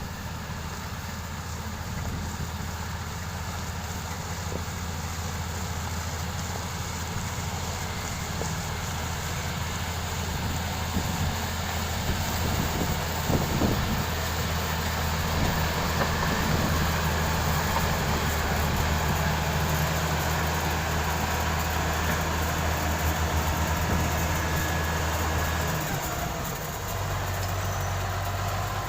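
Heavy diesel construction machinery running steadily with a low engine hum. Near the end the engine note changes pitch.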